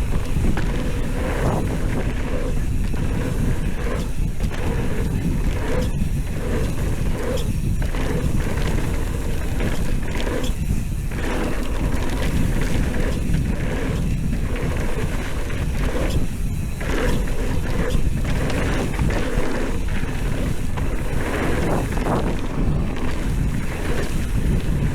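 Mountain bike riding down a dirt trail: wind buffeting the ride-along camera's microphone and tyres rumbling over the ground, with scattered knocks from bumps.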